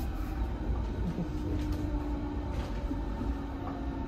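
Steady low rumble of a passenger train heard from inside the carriage, with a faint steady hum above it.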